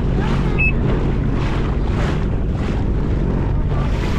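Sea-Doo Fish Pro jet ski running steadily under way, its engine a constant low hum, with wind on the microphone and a rush of water that swells about twice a second.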